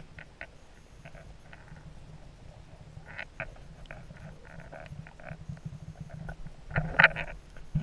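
Muffled underwater sound picked up through a GoPro's waterproof housing in shallow sea water: a low steady rumble with scattered faint clicks and taps, then a louder burst of knocking and rustling about seven seconds in.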